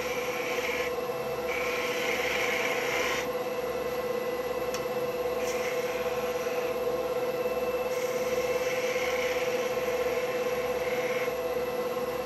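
Wood lathe running with a steady hum while a turning tool cuts a spinning black walnut blank. The cutting hiss comes and goes in about four passes of one to three seconds each.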